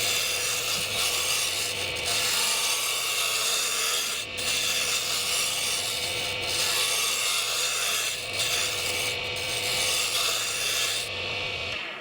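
Wood lathe spinning a wooden broom-handle blank while a turning tool cuts it down to size: a steady scraping shave of steel on wood with a few short breaks, over the lathe motor's hum, stopping near the end.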